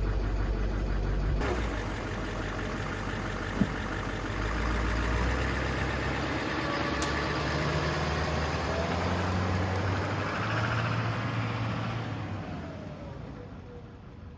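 Duramax turbo-diesel V8 pickup engine idling, then pulling away and driving off; the engine fades over the last couple of seconds as the truck moves away.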